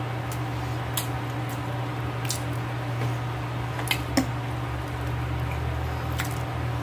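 Close-up wet chewing and mouth sounds of someone eating soft boiled vegetables, with several sharp clicks of a metal fork against a plate, the loudest a little past the middle. A steady low hum runs underneath.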